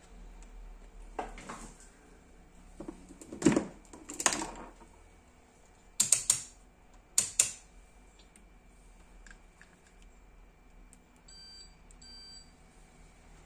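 Hook-up wires and test leads being handled on a wooden workbench: a few knocks and clicks, the loudest a quick double click about halfway. Near the end, two short high electronic beeps from a multimeter as its probes are put to the amplifier's output transistors.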